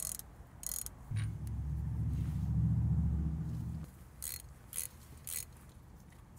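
Ratchet wrench clicking in short runs while loosened 17 mm bolts are spun out. In the middle there is a low, steady hum lasting about three seconds.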